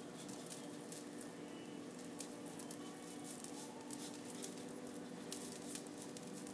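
Wide paintbrush dragging thick textured base-coat paint across a board in repeated faint, scratchy strokes, over a steady low hum.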